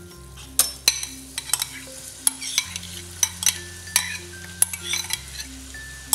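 Julienned carrot and diced potato tipped from bowls into a stainless steel pot of chicken cooking in butter, with a light sizzle. Sharp clinks and knocks of the bowls and the metal spoon against the pot come about a dozen times, most of them between the first and fifth second.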